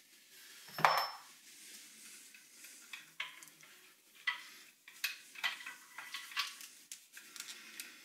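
Light metallic clinks, clicks and scraping as a short cut-off piece of the trolling motor's metal shaft tube is handled and slid over the motor's wires. A sharper knock with a brief ring comes about a second in, and small clicks and scrapes follow through the rest.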